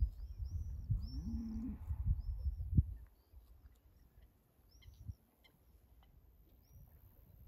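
A bird calling, a run of short arched chirps in the first two seconds and a few more later. A low rumble sits under the first three seconds and then drops away.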